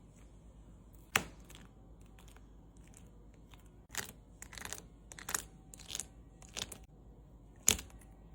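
Short, sharp crackling and scraping noises of small objects being handled, about eight in all, with the two loudest about a second in and near the end.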